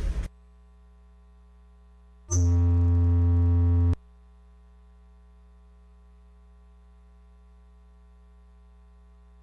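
Faint steady electrical hum on the broadcast line. About two seconds in, a loud, steady, buzzy low tone sounds for about a second and a half, then cuts off abruptly with a click.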